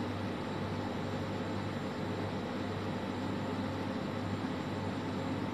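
Steady machine hum with fan-like noise, unchanging throughout.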